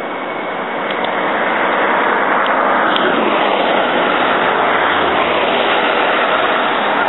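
Road traffic: a motor vehicle on the nearby road, its tyre and engine rush growing louder over the first two seconds, then holding as a steady loud roar.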